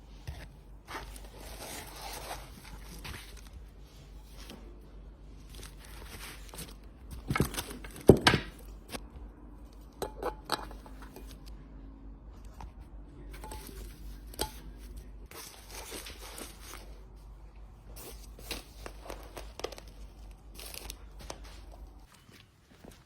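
Food-prep handling sounds: scattered rustling, crinkling and small clicks, with two louder knocks about seven and eight seconds in, over a steady low hum that stops shortly before the end.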